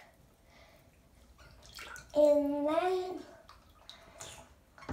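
A young boy's wordless voice: one drawn-out vocal sound about two seconds in, lasting about a second, rising a little in pitch and then falling, echoing in a small tiled bathroom.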